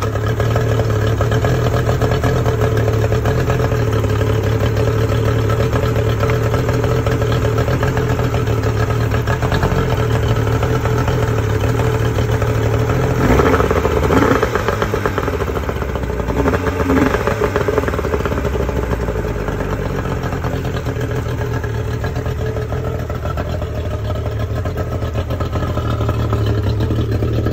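1991 Yamaha 50 hp two-stroke outboard, its rebuilt carburettors linked and synced, idling steadily on a garden-hose water supply. It is briefly revved twice about halfway through, then settles back to idle.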